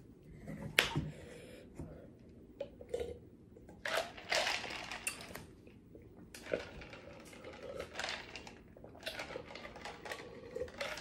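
Ice cubes rattling and clinking in a tumbler as it is tipped up to the mouth to get at the ice, in a series of clicks and short clattering rattles.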